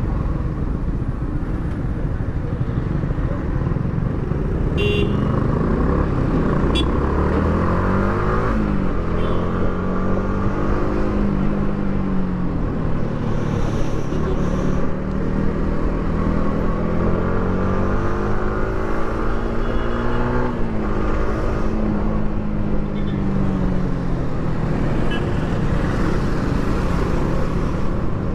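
Yamaha R15 V3's single-cylinder engine on its stock exhaust, riding: the engine note climbs and drops again several times as the bike accelerates and eases off, over steady riding noise.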